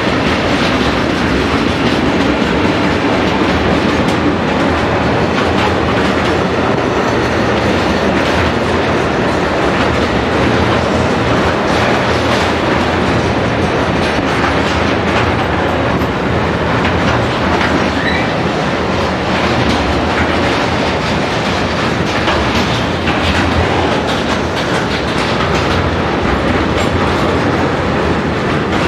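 A long freight train of tank wagons rolling past at speed: a steady loud noise of steel wheels on rail, with the clickety-clack of wheelsets over rail joints and gaps.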